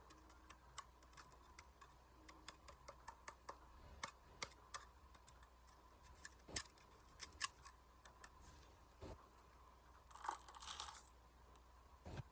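Irregular sharp clicks and scratches of a tool picking and scraping at clumped clay inside a cardboard firework shell, with a longer scraping rush about ten seconds in.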